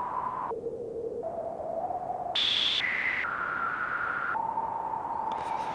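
Noise from a Feedback Static module through a resonant filter whose cutoff is stepped by a sample and hold with no slew, so the whistling wind jumps abruptly from one random pitch to the next every half second to a second. It jumps up to a high whistle about two and a half seconds in, then steps back down to a middle pitch.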